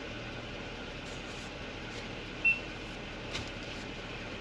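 Steady hum of an idling vehicle heard from inside its cabin, with a short high beep about two and a half seconds in and a faint click about a second later.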